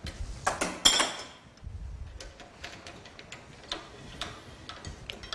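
Metal clicks and clatter from a hand-crank pasta machine being handled as its cutting attachment is set up. There is a louder clatter with a brief metallic ring about a second in, then scattered light clicks and taps.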